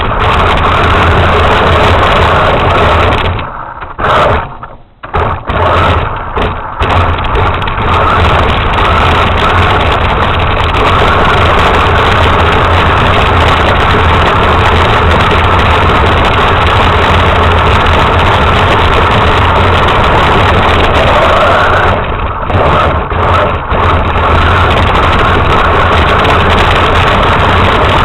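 Radio-controlled truck's motor running steadily, with brief drop-outs about four seconds in and again near the end.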